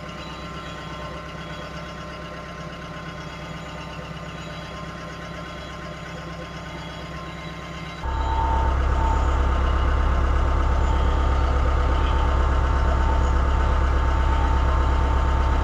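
Mahindra 2638 compact diesel tractor engine running steadily while the tractor carries a load on its forks. About halfway through it suddenly gets much louder and fuller, with a steady whine on top, as if throttled up.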